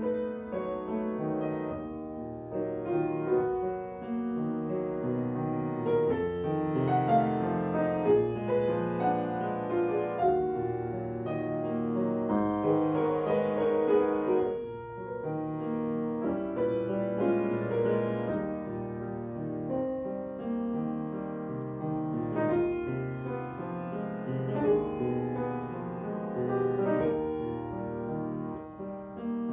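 Piano playing a classical piece solo, a steady flow of notes and chords with a brief lull about halfway through.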